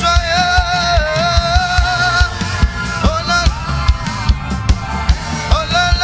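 Live gospel worship music: a man singing long held notes with vibrato into a microphone over a steady drum and bass beat.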